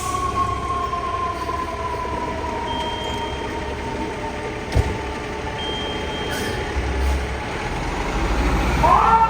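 Fire truck's mechanical siren slowly winding down in pitch, then winding up sharply again near the end, over a truck engine's low rumble. A single sharp knock sounds about halfway through.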